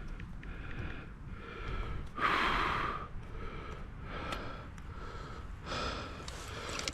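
A man breathing heavily through nose and mouth, a breath about every second, with one louder, longer breath a little over two seconds in.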